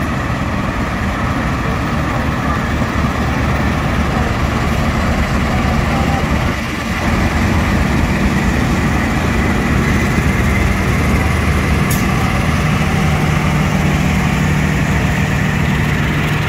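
KAI CC 206 diesel-electric locomotive's engine running as it hauls a passenger train slowly past, followed by the coaches rolling by. A steady low drone lies under the rumble throughout.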